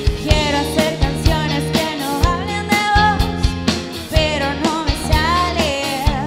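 Rock band playing a song with a woman singing a wavering melody, over electric guitar, keyboard and a drum kit keeping a steady beat.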